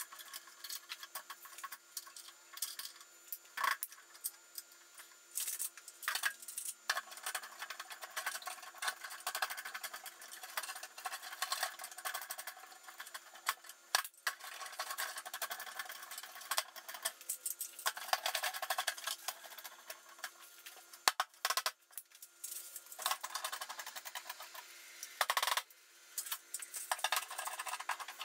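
Metal bar clamps clicking, rattling and scraping as they are slid and tightened across a glued plywood carcass. A few sharp knocks come through, among them a rubber-mallet tap about halfway through.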